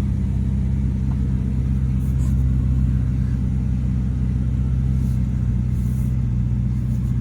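Ferrari SF90 Stradale running steadily at low speed, heard from inside the cabin as an even low hum with no revving.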